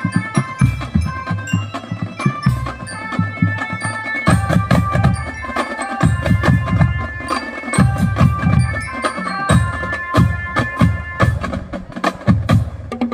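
Non-brass marching drum band playing: a steady beat of marching drums under a bright, ringing melody on mallet bell instruments.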